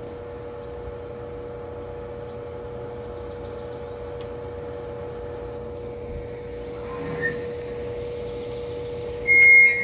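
Steady mechanical hum with a constant mid-pitched tone, like a motor running. Near the end comes a short, loud high-pitched squeal.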